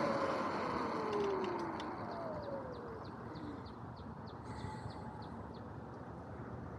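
Sur-Ron X electric dirt bike's motor whine falling in pitch as the bike slows to a stop, leaving a low road hum. Over it, a run of faint high chirps, about two a second.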